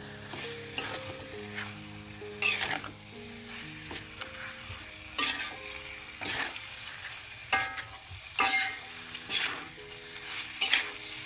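Metal spatula scraping and tossing octopus and vegetables around a wok as they sizzle in sauce, about a dozen irregular strokes over a steady frying hiss.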